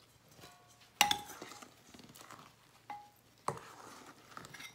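A wooden spatula folding whipped egg whites into chocolate cake batter in a stainless steel bowl, with quiet scraping and three knocks against the metal bowl, each ringing briefly; the loudest is about a second in.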